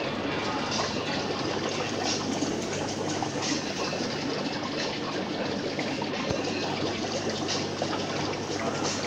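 Aquarium water bubbling and trickling steadily from air-driven sponge filters, with faint pops, over a steady low hum.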